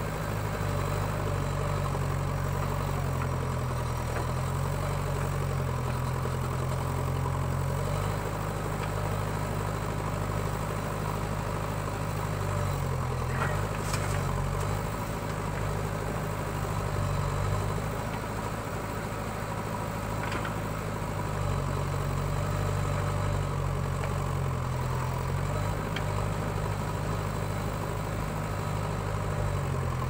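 Diesel engine of a JCB 3DX backhoe loader running under working load, its note rising and falling several times as the backhoe arm digs and swings to dump soil.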